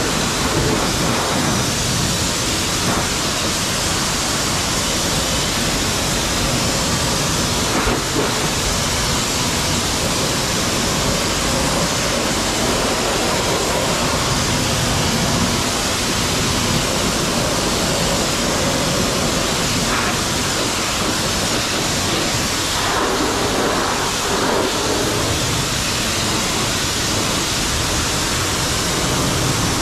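Steady, loud hiss of high-pressure water spraying, washing road grime off a truck.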